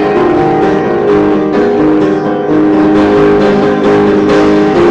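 Upright piano being played, a run of changing notes and chords, with a brief drop in loudness a little past two seconds in.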